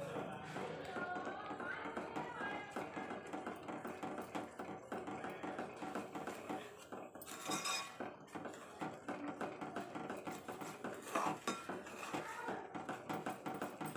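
Steel spoon stirring and scraping against the side and bottom of an aluminium pan, with rapid, irregular clinks, as gram flour is mixed into hot sugar syrup.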